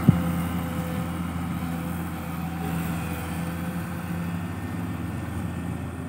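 Diesel engine of a Kobelco SK200 Mark 1 hydraulic excavator running steadily as the machine digs and dumps sand. A single sharp knock comes right at the start.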